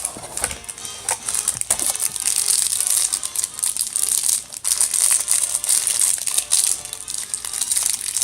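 Plastic candy packaging crinkling as it is handled, a dense run of crackles and rustles.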